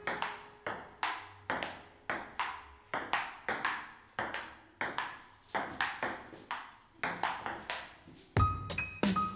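Sharp, clicking hits played from a keyboard sampler, about two a second in an uneven rhythm, each dying away quickly with a noisy tail. Near the end a louder sound with a steady pitch comes in.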